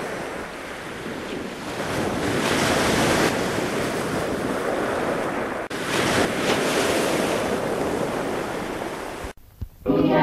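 A loud rushing noise that swells and eases, breaking off sharply about halfway through and cutting out abruptly near the end. A choir begins singing just as it stops.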